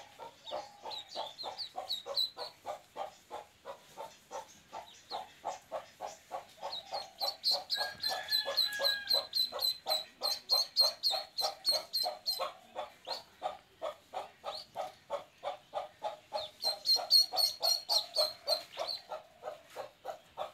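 Birds calling: a steady run of short calls, about four a second, joined twice by stretches of high, rapid peeping typical of a duckling.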